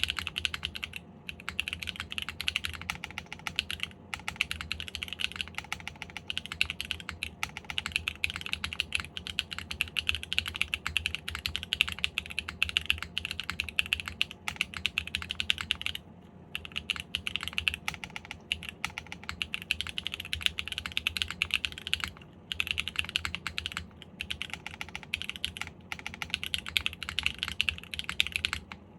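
Fast, continuous typing on a KBDfans KBD8X MKIII custom mechanical keyboard with stock Sarokeys Strawberry Wine switches and GMK keycaps, mounted on an aluminium plate with no foam dampening. The keystrokes run in quick streams of clicks with a few short pauses, and stop shortly before the end.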